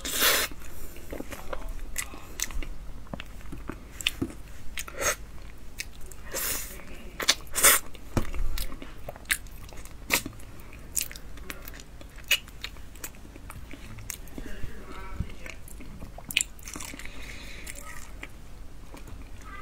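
A person eating durian: chewing and sharp mouth clicks at irregular intervals, a few louder ones near the start and about seven seconds in.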